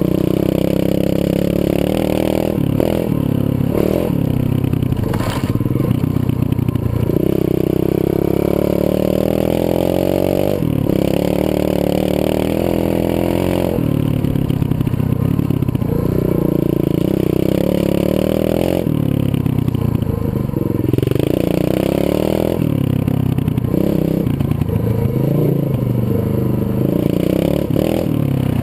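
125cc Zongshen pit bike's single-cylinder four-stroke engine running under way, its pitch rising and falling over and over as the throttle is opened and eased off, with several brief drops in between.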